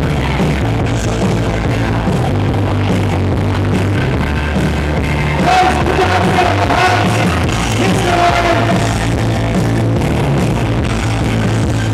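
Loud rock song with a steady bass line; a singing voice comes in about halfway through.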